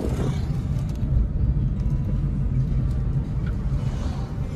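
Car driving along the road: a steady low rumble of engine and tyres.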